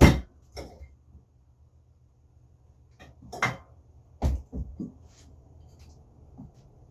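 A few separate knocks and clunks of motorcycle front-fork parts being handled during disassembly: a sharp one at the start, then a cluster of them about three and a half to five seconds in.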